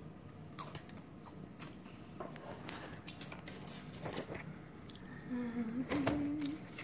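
Cellophane wrapping and a cardboard candy box being handled and opened: scattered light crinkles and clicks. A short hummed voice sounds near the end.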